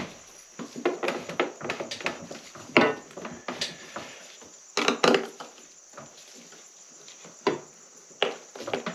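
Irregular clicks and knocks of battery cables, terminal hardware and a hand tool being handled on battery terminals and cases while the batteries are wired up. The loudest knocks come about three and five seconds in.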